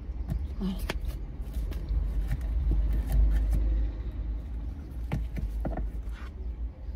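Steady low rumble inside a car cabin, with a few light clicks and rustles from the phone and clothing being handled.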